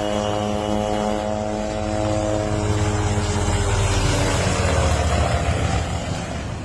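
Light helicopter flying low and coming close: an engine whine of several tones falling slowly in pitch, with a pulsing rotor chop that grows louder, peaks about five seconds in, then eases.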